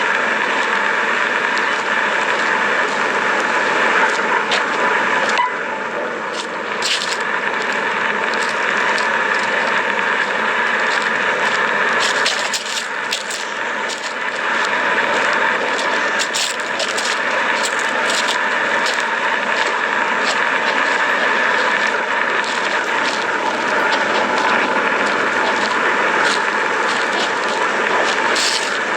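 Steady hissing rush of a Hawaiian lava flow and escaping gas, with scattered sharp cracks and crackles throughout.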